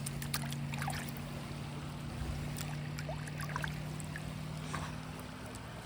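Shallow creek water running and trickling over rocks, steady throughout, with a few faint clicks.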